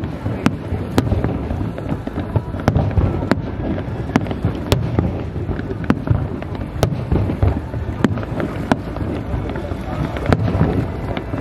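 Aerial fireworks shells bursting: about a dozen sharp, irregularly spaced bangs over a continuous low rumble of booms.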